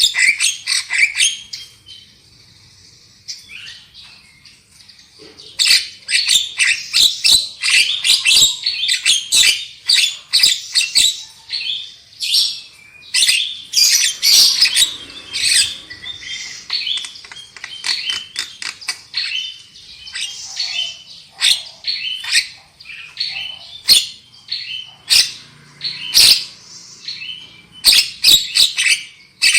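Javan myna (jalak kebo) singing a loud, harsh chattering song of rapid clicks, rattles and squawky notes, with a brief lull a couple of seconds in before the chatter resumes.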